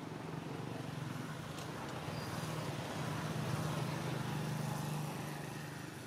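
Low, steady engine hum that grows louder through the middle and fades near the end, like a motor vehicle passing.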